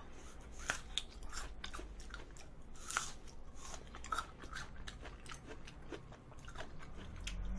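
Close-miked chewing and biting of a mouthful of apple fresh-cream cake: irregular crunchy clicks and mouth sounds.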